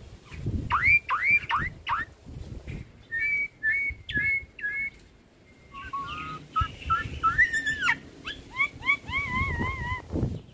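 Hybrid starling (jalak suren × jalak nias) singing a run of clear whistled notes. It gives a few swooping notes, then short repeated chirps, and after a brief pause a string of wavering whistles near the end.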